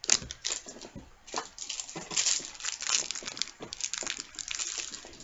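Board game cards and pieces being handled: a string of irregular clicks and taps with bursts of rustling.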